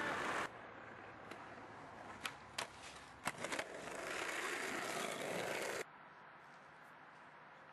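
Skateboard wheels rolling on asphalt, with a few sharp clacks of the board between about two and three and a half seconds in, then a louder rolling rumble. The sound cuts off abruptly about three-quarters of the way through, leaving a faint hiss.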